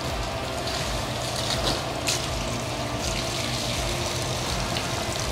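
Steady running water splashing over a car windshield, testing the water-repellent film left by silicone wiper blades.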